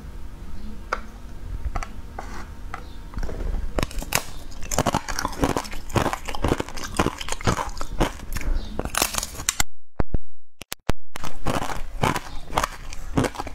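Close-up crunching and chewing of a clear, brittle sheet coated in green powder, heard through a clip-on microphone: many sharp bites and crunches one after another, with a break of about a second roughly ten seconds in.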